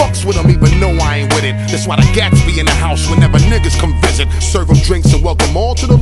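Hip hop track: rapping over a drum beat and a deep, steady bass line.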